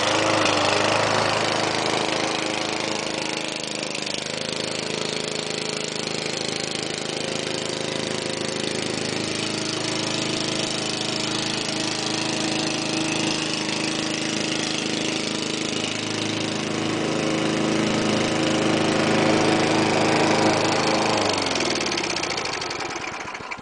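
Craftsman Eager 1 5-horsepower walk-behind lawn mower engine running steadily, then winding down and stopping near the end.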